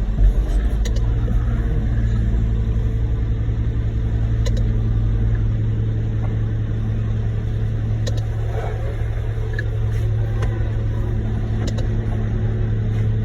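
Heavy diesel engine running steadily with an even low hum, as when concrete is being unloaded into a skid steer bucket. A few light clicks are heard over it.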